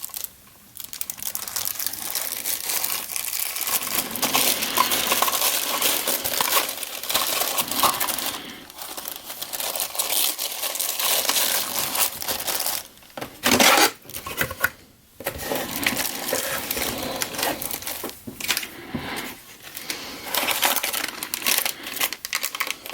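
Plastic packaging crinkling and rustling as it is handled and unwrapped, in a near-continuous stream with a few short pauses and a louder burst about midway.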